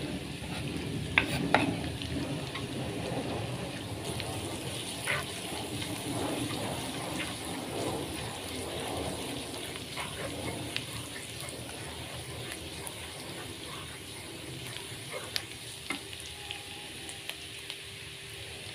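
Minced ginger and garlic sizzling in hot oil in a stone-coated wok as a spatula stirs them, with sharp clicks of the spatula against the pan, the loudest two about a second in.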